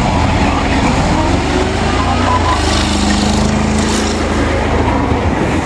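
Tracked armored personnel carrier driving in tight turns on pavement: its engine runs with a steady low rumble under the grind of the steel tracks. Voices are heard faintly alongside.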